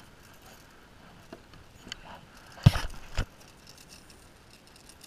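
Handling knocks as a hooked sea bass is landed on a kayak with a spinning rod: a few light clicks, then a short cluster of knocks and thumps about two and a half seconds in, the first the loudest.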